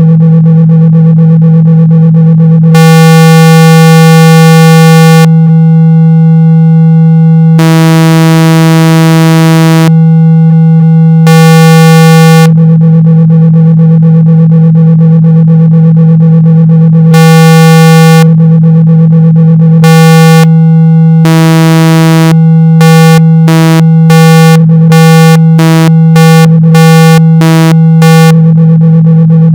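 Loud synthetic speaker-cleaning tone, a steady low hum near 162 hertz meant to shake water and dust out of a speaker. Its timbre switches back and forth between a duller buzz and a brighter, harsher buzz every few seconds, and the switches come quicker, about twice a second, in the last several seconds.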